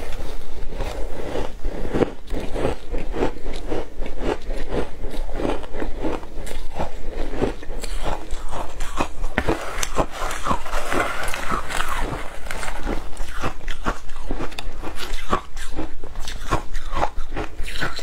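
Matcha shaved ice being bitten and chewed by mouthful: a rapid, continuous crunching crackle of ice breaking between the teeth.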